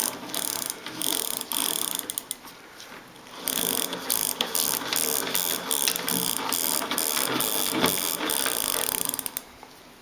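Suntour six-speed freewheel ratcheting in rapid, even clicks as it is spun by hand to unscrew it from the rear hub, with a short pause near the start and stopping just before the end.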